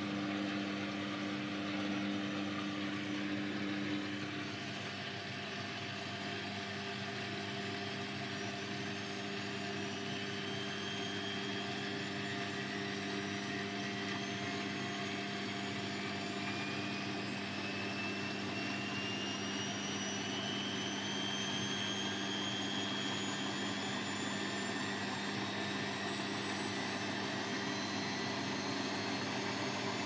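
Beko WMB81241LB 8 kg front-loading washing machine running, its drum turning with a steady hum. From about a third of the way in, a motor whine rises slowly and steadily in pitch as the drum speeds up.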